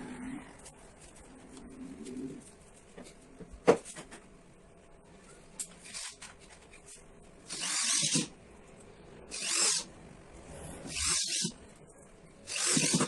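Power drill running in four short bursts in the second half, as when driving screws to mount speaker drivers into a speaker box. There is also a single sharp knock about four seconds in.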